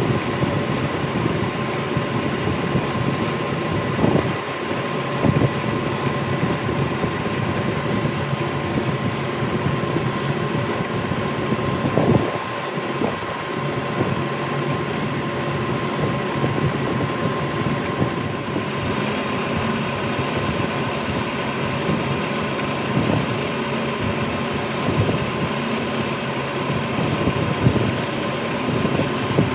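Metal lathe running steadily with a constant whine, with a few sharp knocks about 4, 5, 12 and 28 seconds in.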